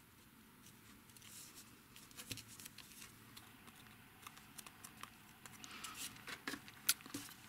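Faint rustling and light taps of small cardstock pieces being pressed together, handled and set down on a craft mat, with one sharper tap near the end.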